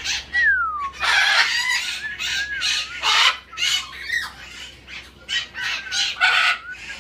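Pet-store parrots squawking in a rapid string of harsh calls, mixed with whistled notes that slide in pitch, one falling whistle right at the start.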